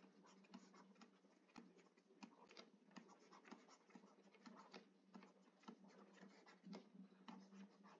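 Faint, irregular taps and scratches of a stylus writing by hand on a tablet screen, several small ticks a second.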